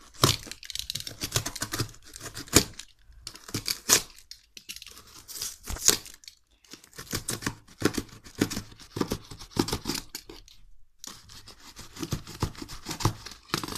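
Snap-off utility knife sawing and ripping through thick corrugated cardboard: irregular scraping and tearing strokes with sharp cracks, broken by short pauses. The cardboard is stiff and cuts with difficulty.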